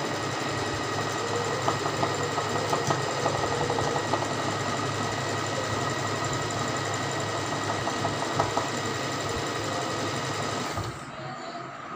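Usha Janome Allure DLX domestic sewing machine running steadily, stitching free-motion embroidery through fabric stretched in a hoop. The sound drops sharply near the end.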